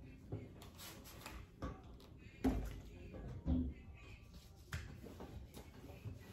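Quiet handling sounds of countertop cleaning: a few soft knocks as a plastic spray bottle is put down on the granite counter, with a cloth wiping the surface. The two loudest knocks come about halfway through, a second apart.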